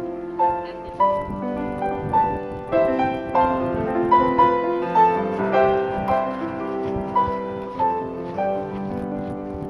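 Solo piano music playing notes at a moderate, even pace.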